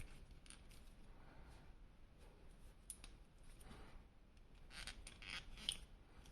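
Faint clicks and rustling of action-figure packaging being handled, with a short cluster of rustles and clicks about five seconds in.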